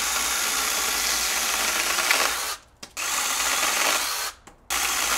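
Orblon 6-inch brushless cordless mini chainsaw running and cutting through a thin branch. The run stops about two and a half seconds in, a short second cut follows, then a brief pause and another cut starts near the end.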